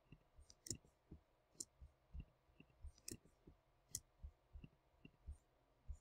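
Faint, irregular clicks and soft taps from computer input, about three a second, as mesh parts are selected and deleted.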